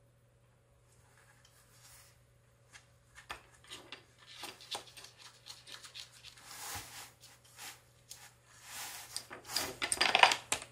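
A cat rubbing her head and body against a corrugated cardboard scratcher: irregular scraping rustles that grow louder and busier, loudest near the end.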